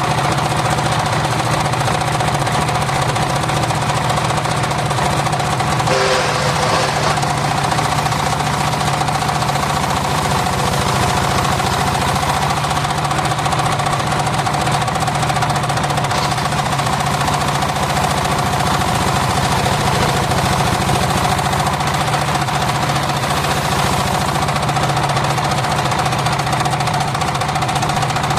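Homemade engine-driven circular saw machine running steadily, a rapid, even engine beat with a constant tone over it. A brief higher, rougher noise comes about six seconds in.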